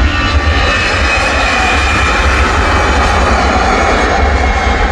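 Departing twin-engine jet airliner running at takeoff power, loud and steady, with a high whine over a deep rumble.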